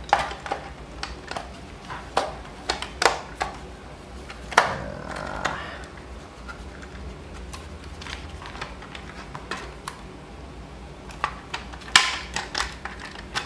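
Irregular clicks, taps and clatter of the portable 12-volt tire compressor's plastic shell halves and parts being handled and fitted back together, with a quick run of sharper clicks near the end.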